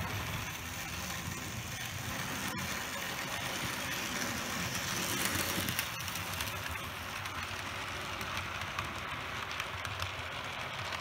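Model train running on the track: the can-motor drive of a Bachmann Plus 2-8-2 Mikado locomotive and the wheels of it and its passenger cars rolling on the rails, a steady whirring and rolling that grows a little louder around the middle, with a single click about two and a half seconds in.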